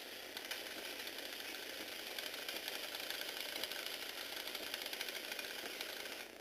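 Small Tomy Aero Spider electric motor driving a Lego Technic worm gear: a steady, fast buzzing rattle of plastic gearing that cuts off suddenly near the end.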